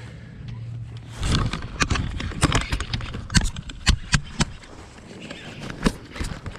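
Handling noise right at a chest-mounted camera. From about a second in, a baitcasting reel, the rod grip and gloved hands knock and rub against it in a rapid, irregular string of sharp clicks and knocks.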